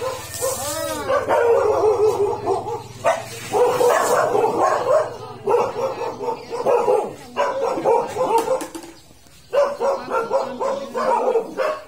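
A dog barking and yelping over and over in short, high calls, pausing briefly about nine seconds in. Near the start, a short hiss of water sprayed from an elephant's trunk.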